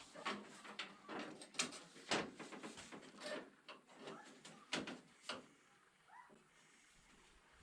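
Scattered knocks and clicks of the VW T3's metal grille parts being handled and pushed into place while they are test-fitted. The knocks come thick for about five seconds, then die down.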